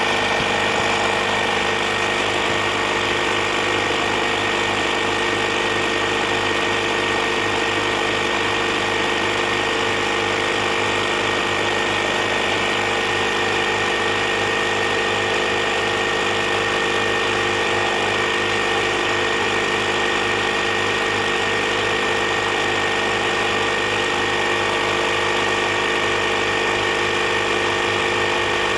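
Air compressor running steadily, pumping air into a leaking tractor turf tire.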